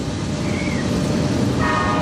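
CSX freight train rumbling past, its diesel locomotive's horn sounding a chord that starts near the end.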